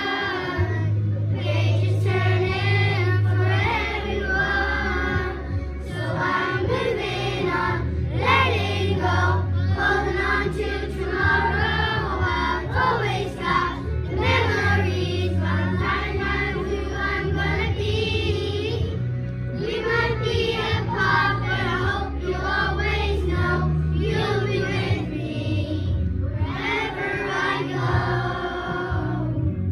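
A group of children singing a leavers song together over an instrumental accompaniment with sustained bass notes.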